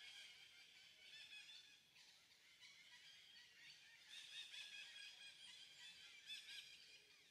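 Faint chorus of many overlapping, high-pitched chirping and squeaking animal calls, swelling a little past the middle.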